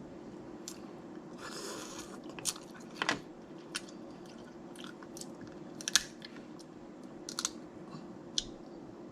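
Close-miked eating of snow crab legs: chewing, with sharp cracks and snaps of crab shell scattered throughout, the loudest about six seconds in.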